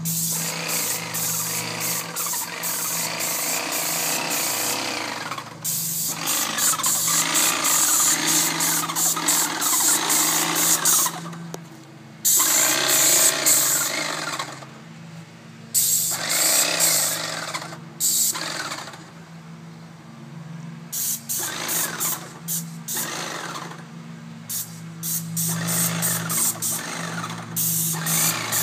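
Airless paint sprayer at work: the pump unit hums steadily while the spray gun hisses in long bursts, stopping and starting many times as the trigger is released and pulled.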